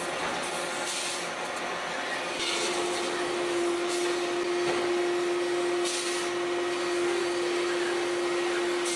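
Sawmill head-rig machinery running, heard inside the operator's control cab: a steady machine noise with a humming tone that grows stronger about two and a half seconds in, and short hissing bursts every second or two.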